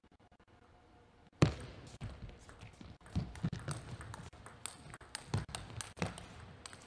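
Table tennis ball in a rally: a sudden loud knock about a second and a half in, then a run of sharp, irregularly spaced clicks of the ball striking the bats and the table.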